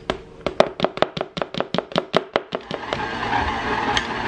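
Rapid, even knocking, about six knocks a second, as flour is tipped into the bowl of a stand mixer. From about three seconds in, the mixer's motor runs steadily, beating the flour into the cookie dough.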